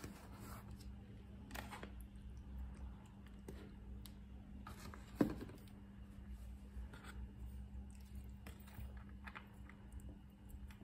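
A plastic spoon scraping and tapping against a disposable bowl and a foil tray as food is spooned out, with one sharper knock about five seconds in, over a faint steady hum.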